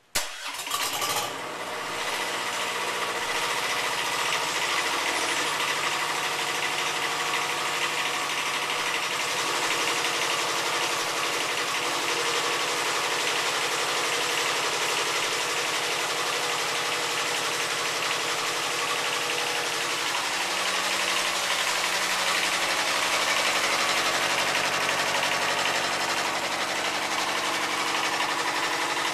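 Yanmar 2TNV70 two-cylinder diesel cranks briefly and catches within about a second and a half, then idles steadily. Its idle speed shifts slightly a few times.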